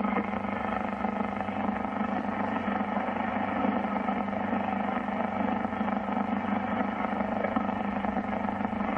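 Powerline networking (PLT) interference from a neighbour's powerline adapters, heard through a Yaesu FRG-100 shortwave receiver on 15.380 MHz AM: a steady hissing buzz with many fixed tones running through it.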